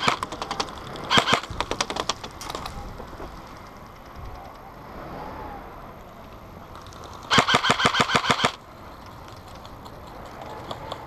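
Airsoft rifle firing fully automatic bursts of sharp cracks at about ten shots a second: a short burst about a second in, and a longer one of about a dozen shots past the middle.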